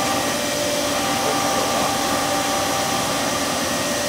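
Camdex 2300 Series pull-and-put ammunition machine running: a steady whirring hum with a few held tones and no distinct strokes.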